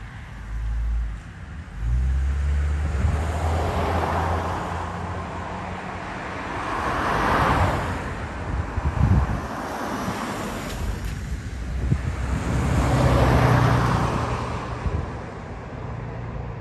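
Road traffic: cars passing one after another, three swishes that swell and fade, over a low engine hum.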